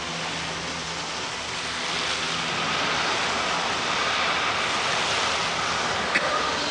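Water-screen spray jets running, a steady rushing hiss of water spray that swells about a second and a half in. A low steady hum sounds underneath for the first couple of seconds.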